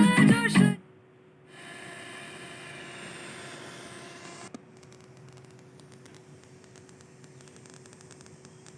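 Saregama Carvaan Mini radio skipping between FM channels. A snatch of song cuts off under a second in, then static hisses for about three seconds and stops with a click, leaving a faint steady hum.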